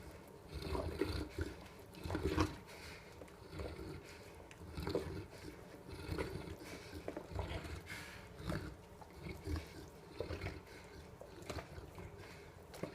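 A dog making wet mouth and throat noises, slurping and gulping at irregular intervals.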